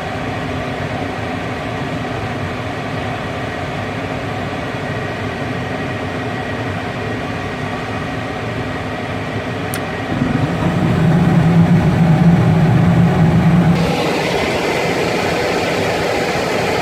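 Gas furnace running just after ignition, with a steady mechanical hum. About ten seconds in a louder, deeper hum comes in, and a few seconds later a broader rushing noise joins it.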